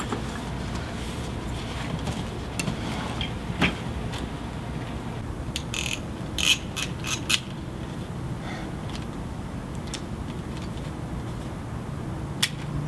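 Small handheld digital camera clicking as its buttons are pressed and its shutter fired: scattered sharp clicks, with a quick run of them about six to seven seconds in, over a steady low room hum.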